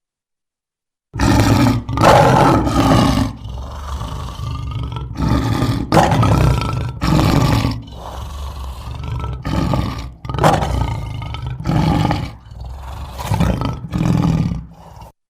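A big cat roaring: a series of loud, deep calls about a second each, with short gaps between them. The calls start about a second in and cut off suddenly near the end.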